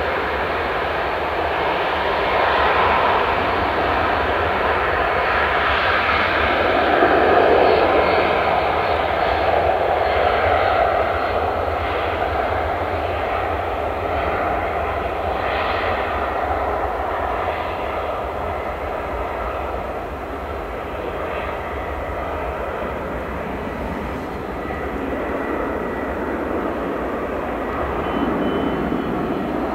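Boeing 757-200 freighter's twin Rolls-Royce RB211 turbofans at take-off thrust during the take-off roll: a steady jet roar that grows loudest about seven seconds in as the aircraft passes, eases, then swells again near the end as it rotates.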